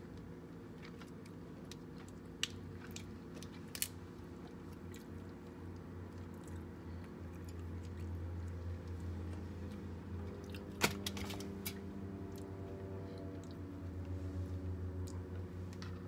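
Close-up chewing of king crab leg meat, with a few sharp cracks of crab shell, the loudest about eleven seconds in, over a steady low hum.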